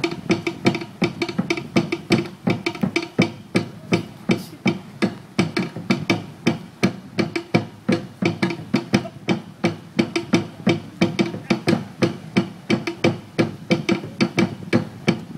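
Fast Polynesian drumming: drums and wooden percussion struck in a rapid, driving, steady rhythm, the kind that accompanies a fire knife dance.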